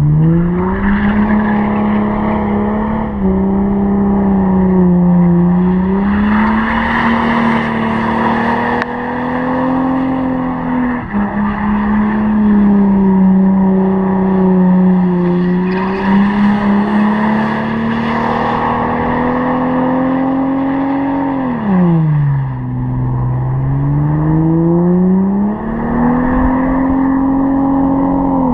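Holden VT Commodore engine held at high revs through a burnout, its pitch wavering and then dropping sharply about three-quarters of the way through before climbing back up. Spinning rear tyres screech on the asphalt, swelling louder twice.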